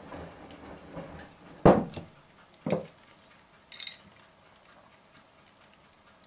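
Kitchen clinks and knocks from a teaspoon and a small glass bottle being handled over a steel saucepan: a sharp knock a little under two seconds in, a second about a second later, then a faint ringing clink.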